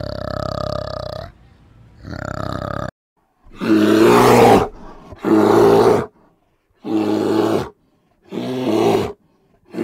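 A bear roaring in a series of five loud, gruff blasts of about a second each, with short gaps of silence between them. They are preceded by a steadier pitched animal sound in the first three seconds.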